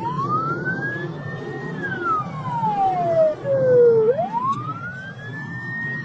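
An emergency-vehicle siren wailing. Its pitch climbs over about a second and a half, sinks slowly for about two seconds, then climbs again near the end. Under it runs a steady low rumble of vehicle noise.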